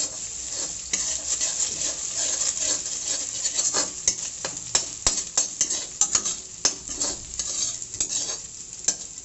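An egg and chopped vegetables sizzling in hot oil in a pan while a utensil stirs them, with frequent irregular clicks and scrapes against the pan.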